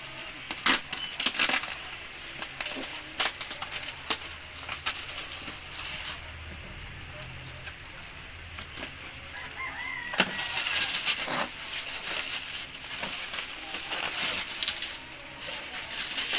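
Plastic mailer bag crinkling and crackling, with tape being picked at and torn, as a parcel is opened by hand. A rooster crows once about ten seconds in.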